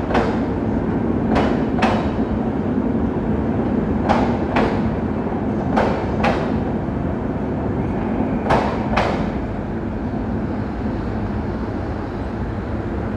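Passenger train coaches rolling past on the platform line: a steady rumble with wheel clacks in pairs every couple of seconds, as the two axles of each bogie cross a rail joint. The clacks stop about nine seconds in and the rumble eases a little.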